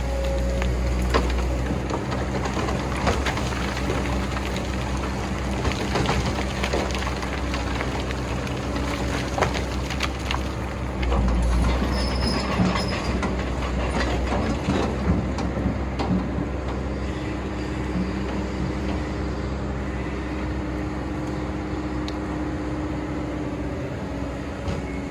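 Excavator's diesel engine working steadily while digging sand, with frequent metallic clanks and knocks over the drone and a short high squeal. The engine deepens under load for a couple of seconds about eleven seconds in.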